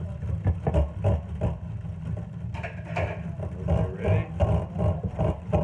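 Hand-cranked rotary egg beater turning in a bowl, its gears and beaters clattering rhythmically at about three strokes a second.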